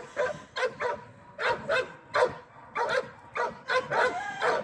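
Dog yipping and barking in short, repeated calls, about a dozen irregularly spaced ones.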